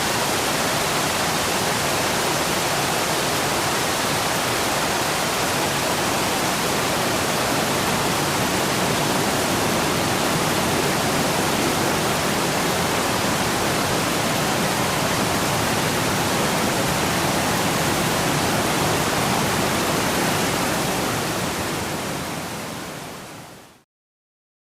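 Steady rain falling on a lake, an even hiss of drops on the water, fading out over the last few seconds and then stopping into silence just before the end.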